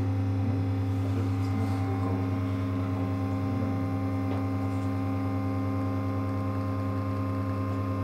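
Sanremo Opera espresso machine's pump running with a steady low hum while it pushes water through the coffee for a 9-bar extraction.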